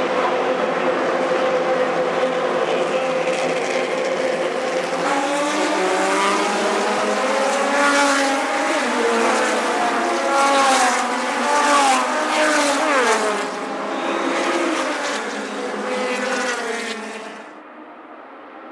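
Race car engines at full song: first one steady engine note, then several cars revving at different pitches at once, rising and falling through gear changes, with one note falling away near the middle. The sound drops off suddenly near the end.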